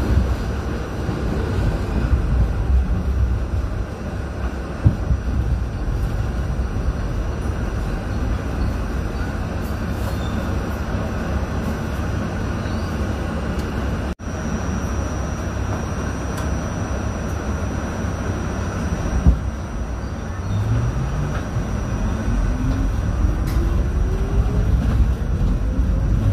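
R68A subway car running on the rails, a steady rumble of wheels and car with a few single clicks from the track. In the last six seconds the traction motors start a whine that climbs steadily in pitch as the train accelerates out of the station.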